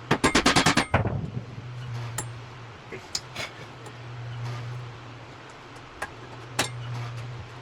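Metal tools working on a vehicle's wheel hub: a quick rattling burst of about ten metallic strikes in the first second, then scattered single clinks. Under it a low hum swells and fades every couple of seconds.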